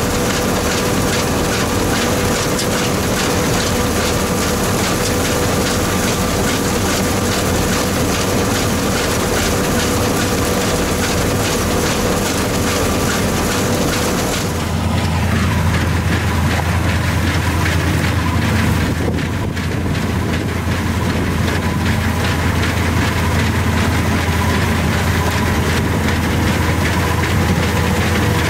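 1983 New Holland combine harvester with a Fiat diesel engine running under load while cutting and threshing wheat. The first half is heard from inside the cab: a steady machine drone with a constant whine. About halfway the sound changes abruptly to a deeper, heavier engine sound, as heard from outside the combine.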